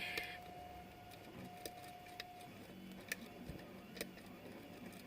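A few faint, scattered clicks of a lock pick working the pins of a pin-tumbler lock held under tension.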